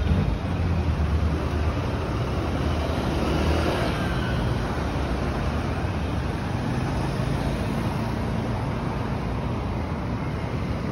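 Street traffic: cars and motorcycles driving along the road. A nearby vehicle engine adds a low hum for the first few seconds, then fades.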